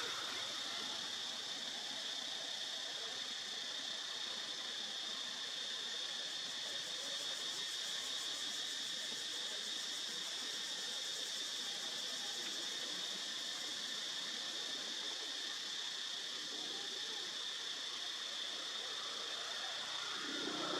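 Steady high-pitched insect drone, like cicadas or crickets, over faint hiss.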